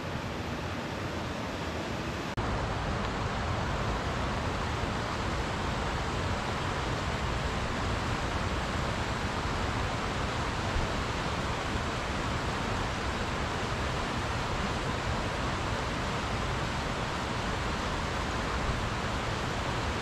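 Steady rush of flowing stream water. About two seconds in it cuts to a louder, deeper rush that then holds steady.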